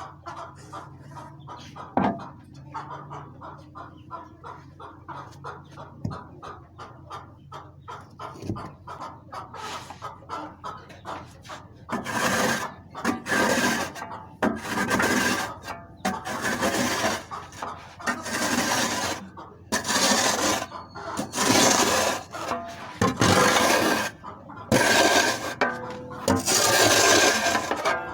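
Chickens clucking. From about halfway through come loud, rough scraping strokes, roughly one a second, each about a second long.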